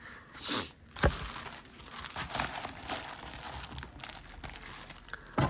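Crinkly wrapping being handled, rustling throughout, with a light knock about a second in and a sharper one near the end.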